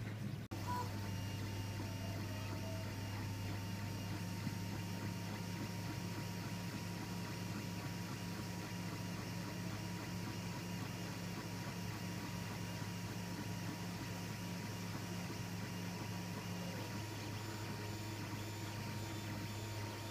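3D printer running a print, its motors giving a steady hum with a faint high whine.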